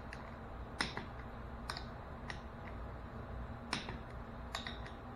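Click-type torque wrench on the flywheel bolts, giving a sharp click each time a bolt reaches its set torque: about five clicks, unevenly spaced, confirming the bolts are at spec.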